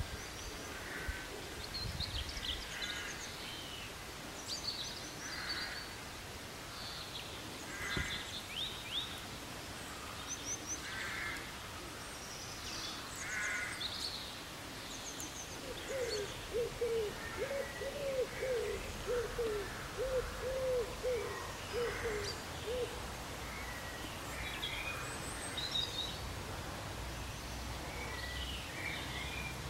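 Wild birds calling: scattered short, high chirps throughout, and in the middle a quick, evenly spaced run of low hoot-like notes lasting several seconds.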